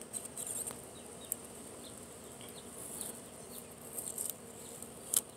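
Faint, steady high-pitched insect buzzing in the background, with a few light clicks from hands handling the wiper insert and its tape, the sharpest one near the end.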